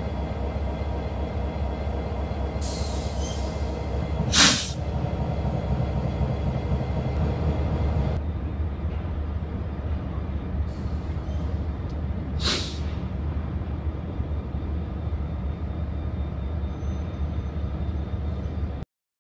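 Norfolk Southern diesel locomotives running with a steady low engine rumble. Two short loud bursts of hissing air from the locomotives' air system stand out, about four and twelve seconds in, each after a softer hiss. The sound cuts off abruptly just before the end.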